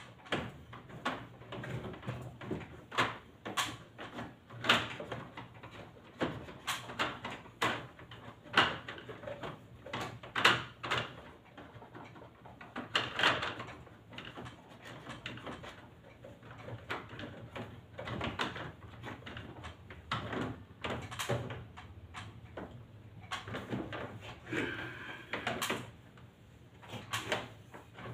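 Irregular clicks, taps and rustling from hands working on the plastic casing of a wall-mounted split air conditioner's indoor unit.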